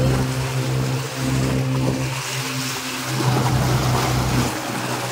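Small wooden boat's motor running with a steady drone, and water rushing and splashing along the hull, the splashing louder from about two seconds in.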